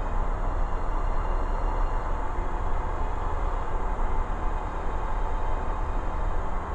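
Steady drone of a light aircraft's piston engine and propeller in flight, heard inside the cockpit, deep and even throughout.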